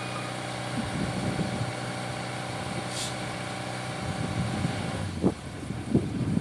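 Heavy diesel engine running steadily at low revs, with a couple of short knocks near the end.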